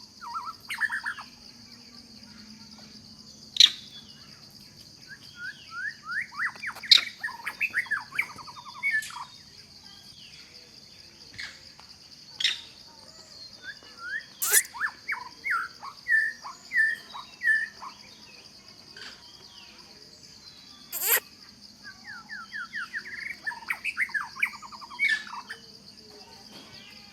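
Birds calling in repeated runs of quick chirps over a steady, high insect drone, with a few sharp clicks.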